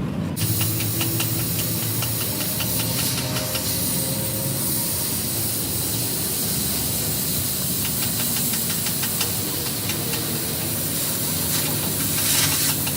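A loud steady hiss, like escaping air or spray, starts abruptly just after the start. Beneath it a low engine hum runs steadily with rapid regular ticking.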